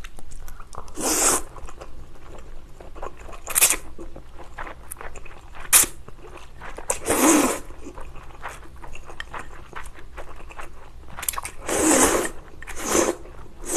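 Close-up eating sounds of chewy spicy jjolmyeon noodles: several loud slurps, the longest about seven and twelve seconds in, with soft wet chewing and smacking between them.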